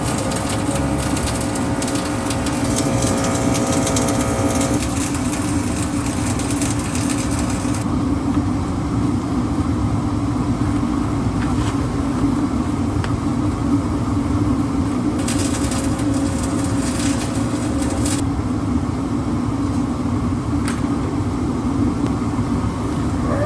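A steady machine drone, with two stretches of dual-shield flux-core welding arc crackling over it: one through the first several seconds, a shorter one a little past the middle.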